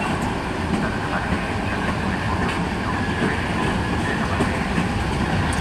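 Trenitalia regional train's passenger coaches rolling past on the rails, a steady rumble of wheels and running gear with a faint high wheel squeal.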